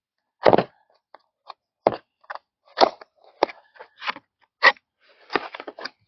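Small cardboard box being handled and opened: a run of irregular sharp taps, scrapes and crinkles of cardboard, the loudest about half a second in.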